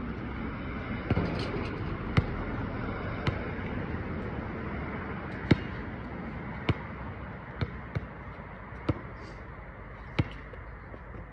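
A basketball bouncing on an outdoor asphalt court: about nine single, sharp bounces at uneven spacing, over a steady background rush.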